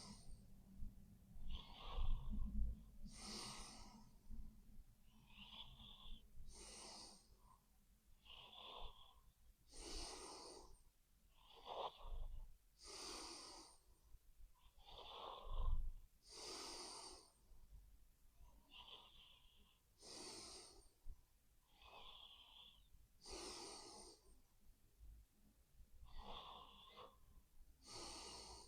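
A sleeping person snoring: slow, wheezy, hissing breaths in and out, one full breath about every three and a half seconds, a few of them with a low rumble.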